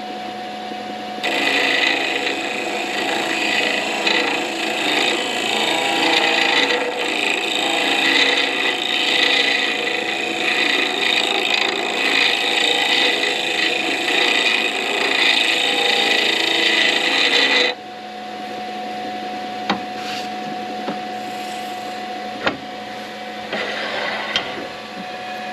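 Wood lathe humming steadily. About a second in, the spinning pen blank is worked with a loud, steady rasping scrape that stops abruptly about two-thirds of the way through. The lathe then hums on alone with a few light clicks.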